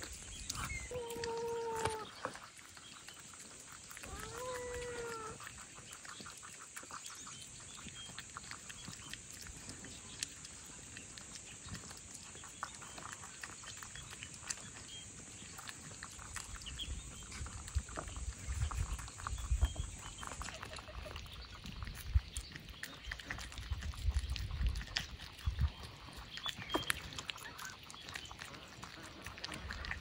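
Cats and rabbits eating together from bowls: steady small wet clicks of chewing and lapping. Two short pitched animal calls sound in the first five seconds, and a low rumble comes and goes in the second half.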